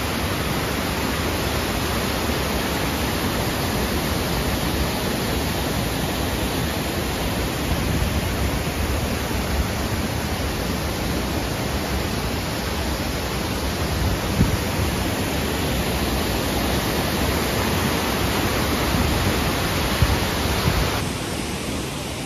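Mountain stream rushing over a low weir and through rocky rapids: a loud, steady rush of water, the stream running high after rain. The rush drops somewhat near the end.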